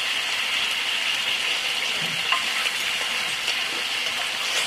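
Stir-fried vegetables sizzling steadily in a wok of hot olive oil and sweet chili sauce, still cooking on the pan's own heat with the flame off.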